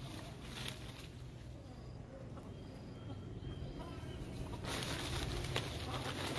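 Faint, brief bird chirps, then from about two-thirds in a rustling hiss of leaves with a few sharp snaps, as a monkey moves through a leafy tree.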